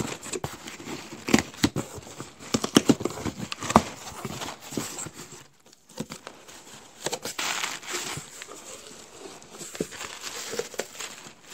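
A taped cardboard shipping box being torn open, with quick sharp rips and knocks of tape and cardboard flaps over the first four seconds. After a short pause comes rustling of paper and crinkle-cut paper shred packing as the box is unpacked.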